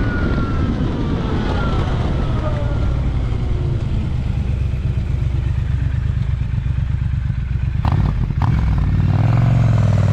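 Zero SR/S electric motorcycle's motor whine over heavy wind rumble. The whine falls in pitch over the first few seconds as the bike slows. After two sharp knocks about eight seconds in, it rises again near the end as the bike speeds up.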